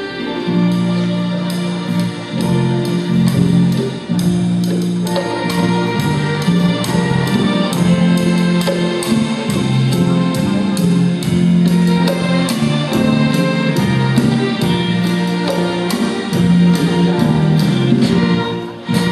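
Live band and orchestra playing the instrumental introduction to a Thai song, with a steady beat.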